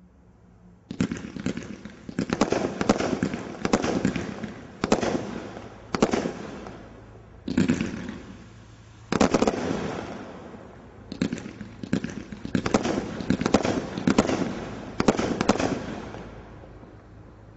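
Ultimate Warrior Category 3 combination Roman candle firing: a sudden volley of sharp, dense crackling every second or two, each volley dying away before the next. It starts about a second in.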